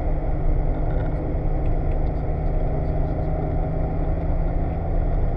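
BMW E30's engine pulling hard at a fairly steady pitch, heard from inside the cabin, over a constant low rumble of road and tyre noise.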